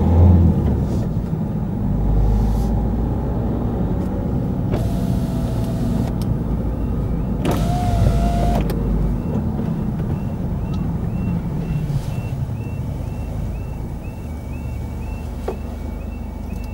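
Car engine and road noise heard from inside the cabin as the car slows towards a level crossing. Near the middle, a power window motor whirrs twice. From about two-thirds of the way in, the crossing's warning alarm sounds a short high tone about two and a half times a second.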